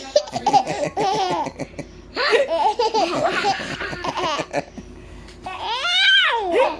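A baby laughing in repeated bursts of quick pulsing laughs, then one long high-pitched call that rises and falls near the end.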